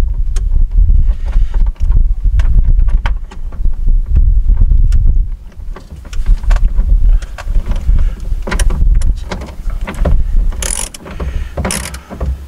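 Wind buffeting the microphone with a low rumble, over the intermittent clicking of a ratchet wrench as a nut at the truck battery is tightened. There are a few louder knocks near the end.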